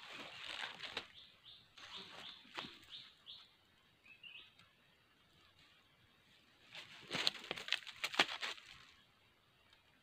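Rustling and crackling of dry leaf litter and bamboo as a bird snare is set by hand. It comes in three bursts, the loudest about seven to nine seconds in.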